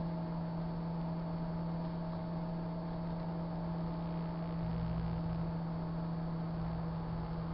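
Sharp Carousel microwave oven running with a load of plastic pens, a steady low hum. A deeper rumble swells twice in the second half.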